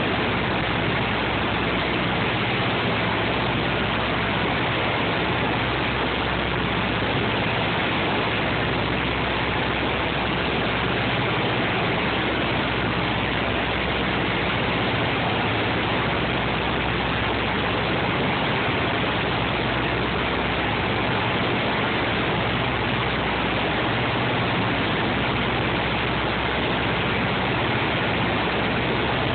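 Cabin noise of a Douglas DC-3 in level flight: its twin radial piston engines and propellers drone steadily under a constant rush of air, heard from inside the cabin.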